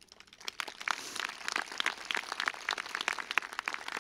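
Audience applauding: many people clapping, starting thinly about half a second in and quickly filling out into steady applause.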